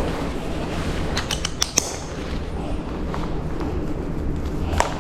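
A quick run of four sharp clicks about a second and a half in, and one more near the end, over a steady low rumble.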